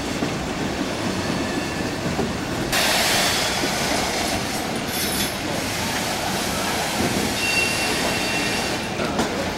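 Freight train of boxcars rolling past, steel wheels rumbling and clicking over the rails. About three seconds in, the sound jumps to a brighter, louder rush of wheels on curved track, with faint wheel squeal.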